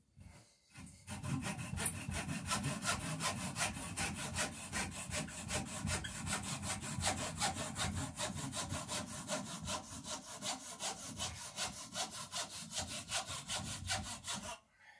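Hand saw cutting a small piece of wood with quick, even back-and-forth strokes. It starts about a second in and stops just before the end.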